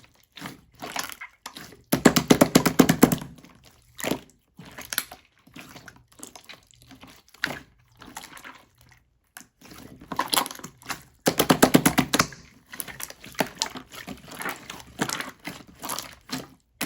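Clear slime being squeezed and kneaded by hand, squelching and popping with rapid crackling air-bubble clicks. The two densest bursts of popping, about a second each, come about two seconds in and again near the middle.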